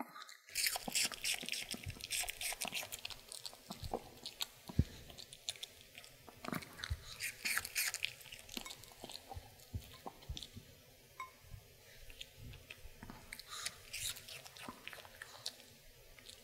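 A Maltese puppy crunching and chewing pieces of raw apple, many crisp wet crunches close to the microphone. The crunching is densest in the first half, thins out, then picks up again in a short run near the end.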